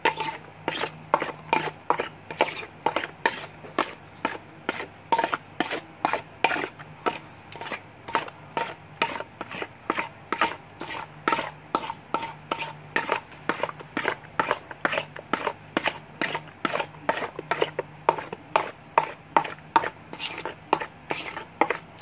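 Thick lotion and powder being stirred in a metal basin: a utensil scraping and slapping through the cream against the metal in steady, even strokes, about two to three a second, blending the powder into the lotion.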